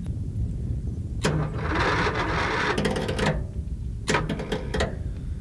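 A generator's electric starter cranking the engine slowly in two tries, a longer one starting about a second in and a short one near the end, without the engine catching: the generator's battery is low.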